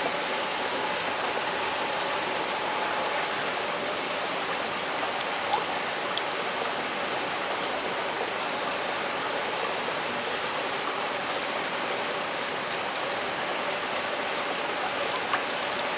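Steady rush of running water flowing through trout-hatchery incubation trays, with a couple of faint ticks.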